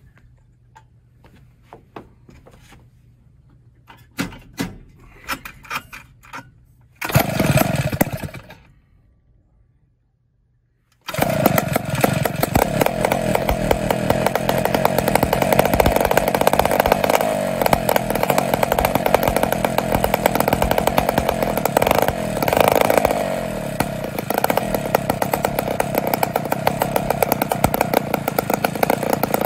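Twin West Bend 580 five-port two-stroke kart engines on a cold start: some scattered clicks and a short loud burst, then the engines running with a fast, buzzing exhaust beat and a brief rise in revs about 22 seconds in.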